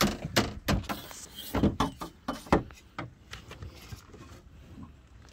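A quick series of knocks and clunks on an aluminium dinghy as a long aluminium boat hook pole is worked to snag a crab pot rope. They come thickest over the first three seconds, then thin out.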